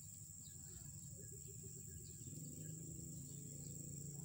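Faint outdoor ambience: a steady high-pitched insect drone, with a low hum coming in about halfway through and growing a little louder.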